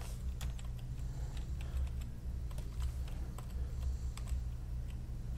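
Computer keyboard being typed on in irregular, scattered key clicks, over a steady low electrical hum.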